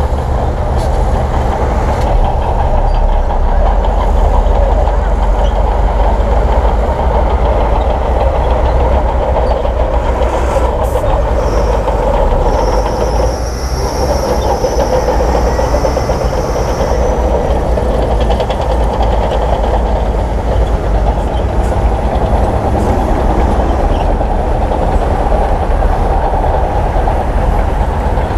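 Shantui crawler bulldozer working: its diesel engine running steadily under the clatter of its steel tracks, with a high whine for a few seconds about halfway through.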